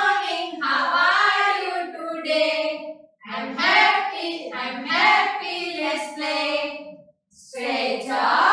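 Several women's voices singing a children's action rhyme together in unison, unaccompanied, in short phrases with two brief pauses.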